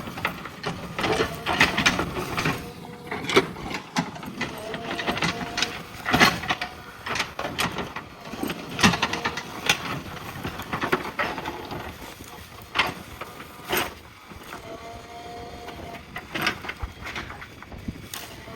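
JCB backhoe loader at work: a dense run of irregular sharp cracks, knocks and scrapes over the running machine, with a short high whine twice.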